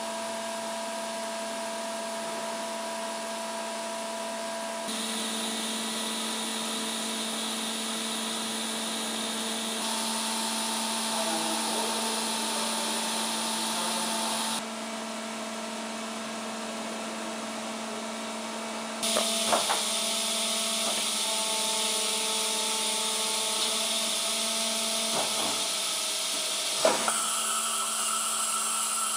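Ketterer KM 120 vertical machining center running: a steady mechanical hum with several whining tones over a hiss, stepping louder and quieter several times, with a few short clunks in the second half.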